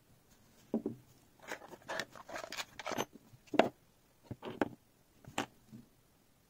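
Handling noise from a small plastic electronics module and its coiled USB cable being picked up and turned over: a run of irregular rubs, scrapes and light knocks, the sharpest about halfway through.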